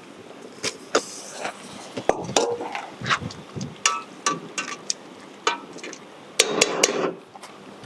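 Metal utensils clinking and knocking against cookware: an irregular string of sharp clinks, some ringing briefly, with a louder clatter about six and a half seconds in.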